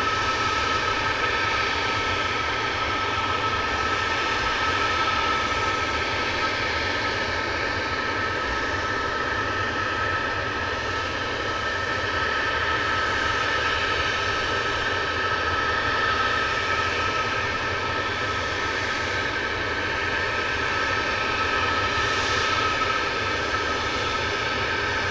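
Tupolev Tu-22M3's two Kuznetsov NK-25 turbofans running at ground idle: a steady jet whine over a rushing hiss. Near the end the whine starts to rise in pitch as the engines are throttled up.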